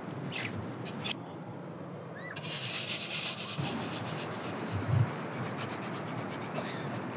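A few footsteps in wet sand at the start, then a razor clam gun being twisted and pushed down into wet beach sand: a gritty rubbing and scraping, with a dull thump about five seconds in.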